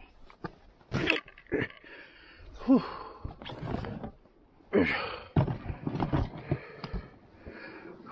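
A man's breathy grunts and a puffed-out sigh of effort while climbing over rough rock, with a few sharp knocks and scrapes of gear against the rock near the start.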